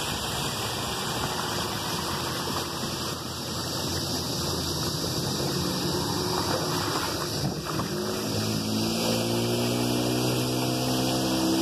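Outboard motor of a canoe running at speed, with water rushing along the hull. About eight seconds in, the engine's pitched tone comes through more strongly and slowly rises as it speeds up.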